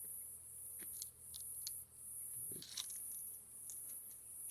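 Faint high-pitched insect trill, steady but cut by several short gaps, with scattered faint clicks and taps.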